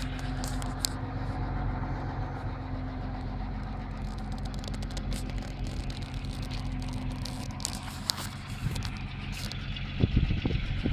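An engine idling steadily at an even speed. Heavy rumbling noise hits the microphone near the end.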